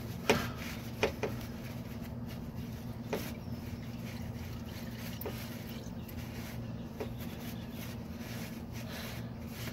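A rag wiping the oil filter mounting surface under the car: faint rubbing with a few sharp clicks and taps, the loudest two in the first second, over a steady low hum.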